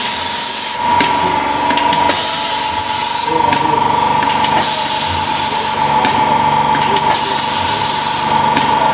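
LAM 50CA automatic thermal laminator running: a steady high whine with light clicking, and a hiss that comes in for about a second roughly every two and a half seconds.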